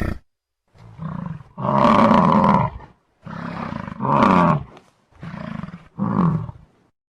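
Torosaurus (horned dinosaur) creature sound effect: three separate calls, each a quieter lead-in swelling into a louder pitched call, with short silences between. The tail of an earlier call ends right at the start.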